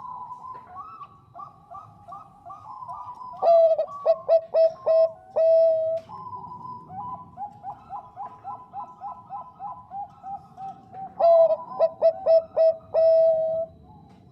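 Bangkok-type zebra dove (perkutut) singing. Soft, quick runs of cooing notes are broken twice, about three seconds in and again about eleven seconds in, by a loud phrase of short clipped coos that ends on a held note.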